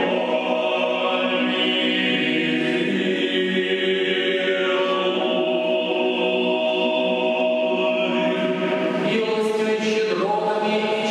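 Orthodox church choir singing unaccompanied liturgical chant, held chords that shift to new harmonies about halfway through and again near the end.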